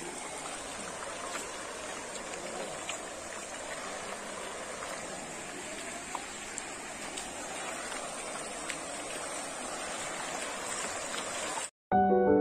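Floodwater flowing, a steady rushing-water sound with a few faint ticks. It cuts off abruptly near the end, where piano music begins.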